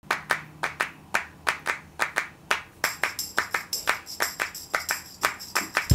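Intro of a background music track: quick, evenly patterned claps. High held tones join about halfway through.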